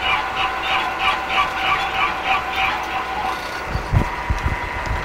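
Milling machine with an end mill plunging into a stainless steel hammer head at about 150 rpm. The cutting gives a rhythmic scraping pulse about two and a half times a second, once per turn of the cutter, over a steady motor and gear whine. The pulsing fades about three seconds in, and a few low thumps follow.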